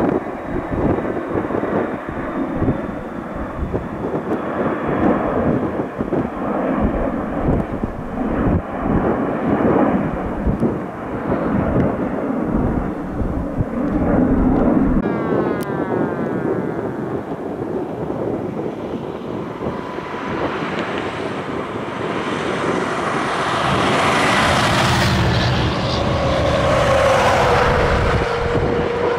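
A passing engine, likely an aircraft, growing louder through the second half and peaking near the end, with a falling tone as it goes by. Gusty wind rumble on the microphone runs under the first half.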